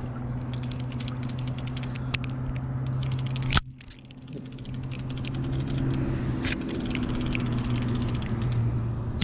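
A steady low motor hum with scattered clicks and rattles of handled gear. Near the middle a sharp snap comes, the sound drops away suddenly, and the hum fades back in.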